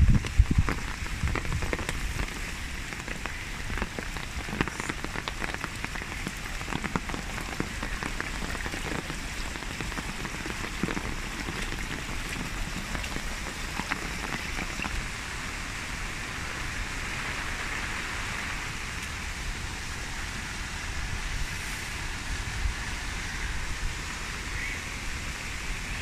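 Steady rain falling on wet paving and plants, mixed with fast-running runoff water in stone-lined channels.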